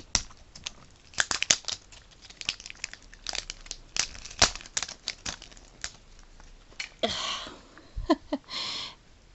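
Crinkly plastic wrap being torn and crumpled off a Mini Brands toy capsule ball. It makes a quick run of sharp crackles, then two longer rustles near the end.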